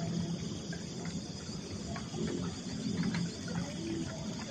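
Insects chirring in the evening, with a low hum that comes and goes and a few faint ticks.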